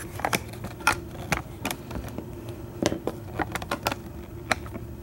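Irregular light clicks and taps from handling small metal parts and tools on a workbench, over a faint steady hum.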